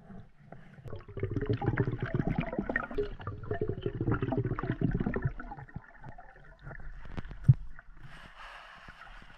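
Muffled underwater noise picked up by a submerged camera: a dense crackle of small knocks and rubbing for several seconds, then one sharp knock a couple of seconds before the end.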